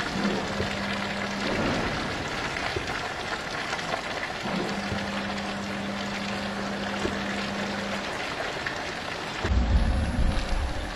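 Molten steel pouring from a tilted foundry ladle: a steady rushing noise like heavy rain, with a low steady hum that comes and goes. Near the end comes a stretch of heavy low rumbling and thuds.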